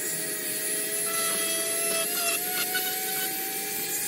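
Small electric drill running steadily, boring a wiring hole through a plastic model-kit part. Its motor whine climbs slowly in pitch and cuts off at the end.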